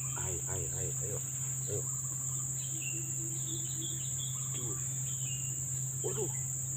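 A steady, high-pitched insect drone runs without a break, with a steady low hum beneath it.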